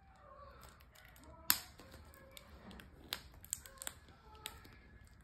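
Plastic L.O.L. Surprise ball shell and wrapping handled and picked open by small fingers: a scatter of sharp clicks and light rustles, the loudest click about a second and a half in.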